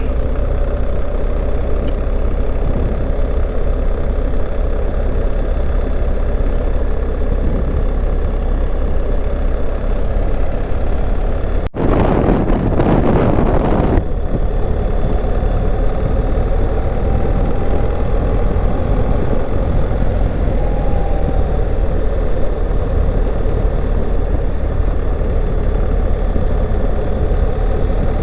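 Motor vehicle engine and road noise, a steady hum. About halfway through it briefly cuts out, then a louder rush lasts about two seconds before the steady hum resumes.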